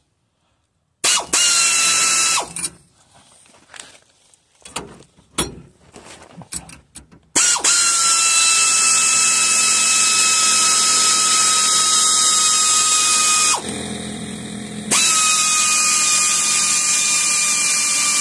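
Pneumatic air ratchet tightening leaf-spring U-bolt nuts. A short burst about a second in and a few clicks come first. From about seven seconds it runs steadily, with air hiss and a whine that dips out briefly before picking up again.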